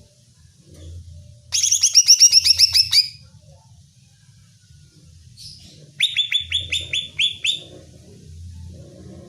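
Green leafbird (cucak ijo) calling in two rapid bursts of about ten sharp, high notes each, every note sweeping downward. The bursts come about four seconds apart.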